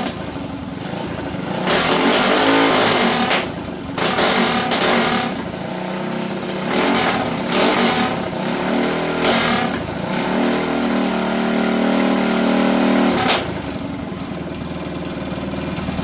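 Harbor Freight Predator single-cylinder four-stroke engine on a custom minibike running and being revved up and down several times, held high for a few seconds before dropping back. The carburettor is overflowing fuel, which the owner takes for a float issue.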